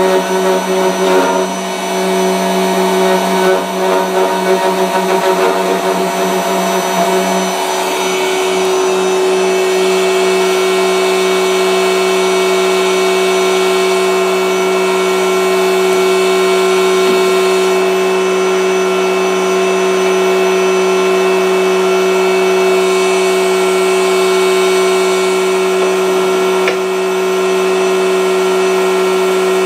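A workshop machine's electric motor runs steadily with a constant hum, with uneven handling noise over it for the first seven seconds or so.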